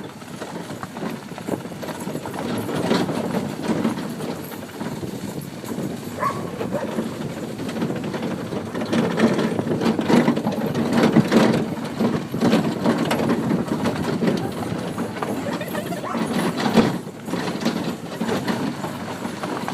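Dog sled moving steadily along the trail behind a running dog team: a continuous rolling rumble and scrape from the sled, with the dogs' footfalls patting through it.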